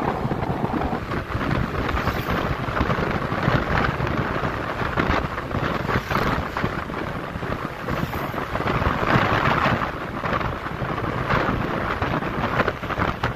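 Wind buffeting the microphone of a motorcycle riding at road speed: a dense, rough rumbling rush that swells and fades, with road noise underneath.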